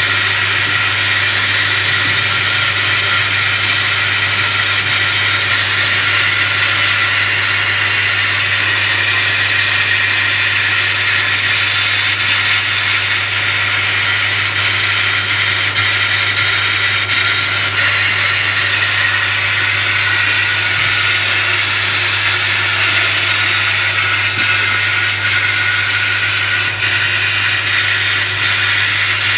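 Bead blaster spraying blast media through its nozzle in a continuous hiss, stripping paint from a cracked aircraft fairing, with a steady low hum underneath.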